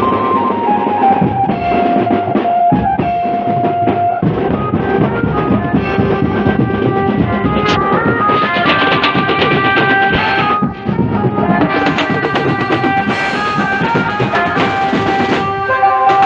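Street procession band playing: drums beaten with sticks in a dense rhythm, with cymbals and a stepping melody line carried over horn loudspeakers.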